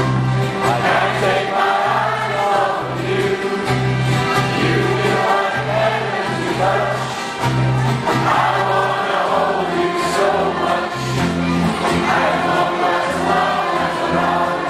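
A group of voices singing a song together, with long low notes held beneath the melody.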